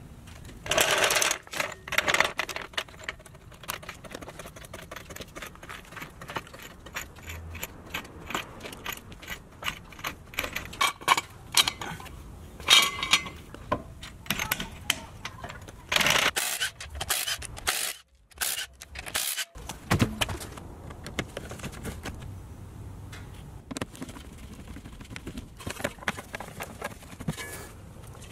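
Metal clicks, scrapes and clanks from a steel hydraulic floor jack being set under a car and its handle pumped to lift it, with a few louder metal knocks.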